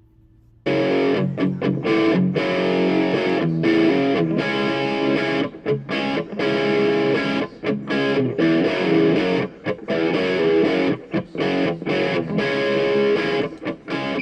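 Outro music with distorted electric guitar, starting abruptly about half a second in.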